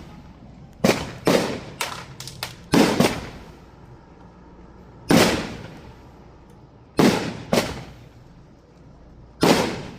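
Fireworks going off: a string of sharp, loud bangs, about nine in ten seconds, some in quick pairs, each trailing off in a short echoing rumble.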